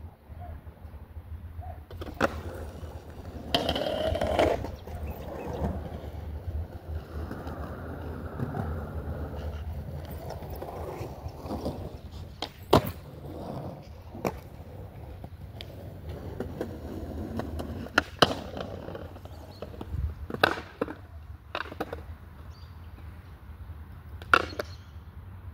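Skateboard wheels rolling with a steady low rumble, broken by about eight sharp clacks of the board against the ground from tricks being popped and landed.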